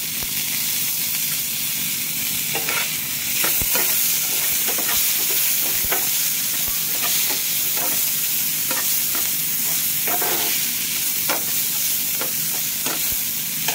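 Onions and diced green capsicum sizzling in oil in a non-stick frying pan, stirred with a steel spatula whose strokes against the pan come through as irregular clicks and scrapes from a couple of seconds in.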